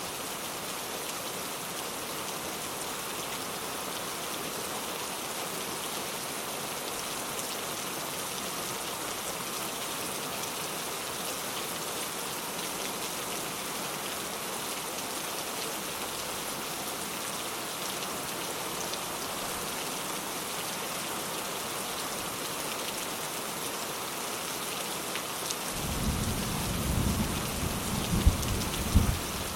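Steady rain falling. Near the end thunder comes in: a low rumble with a couple of sharp cracks.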